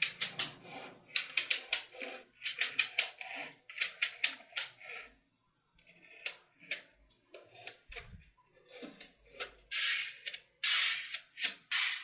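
Small magnetic balls (neodymium ball magnets) clicking and clacking as blocks of them are snapped together and pushed into place by hand: quick runs of sharp clicks with short pauses, and a few longer rattling noises near the end.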